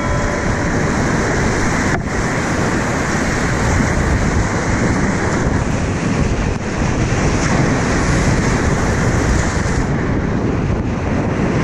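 Whitewater rapids rushing and spray splashing over a kayak-mounted action camera, a loud steady roar of water with wind buffeting the microphone.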